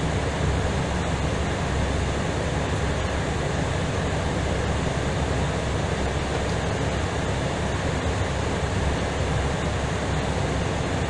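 Steady cabin noise of an Airbus A320ceo airliner in flight: an even rush of engines and airflow.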